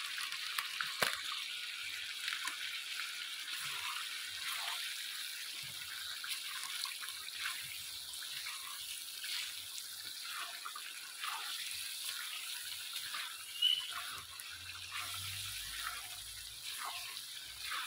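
Chicken masala sizzling and bubbling in a pan: a steady hiss with scattered pops and crackles, as a wooden spatula stirs and scrapes through the pieces.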